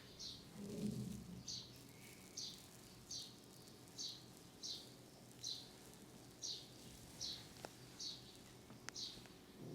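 A bird chirping over and over, a short high chirp roughly every three-quarters of a second.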